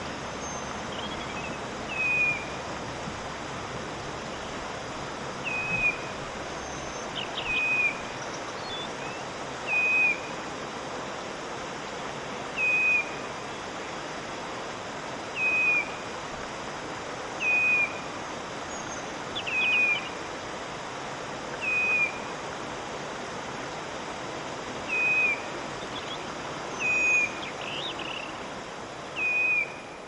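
Wood warbler giving the same short, falling call note over and over, about one every two to three seconds, with a few fainter higher chirps between, over a steady hiss.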